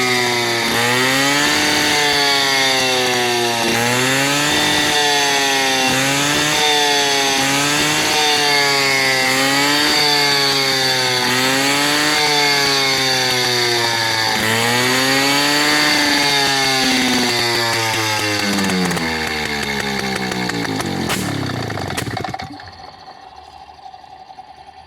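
Restored Peugeot 103 moped's 50cc two-stroke single-cylinder engine running on test, revved up and down over and over, roughly every two seconds. Near the end its pitch sinks and it stops about 22 seconds in.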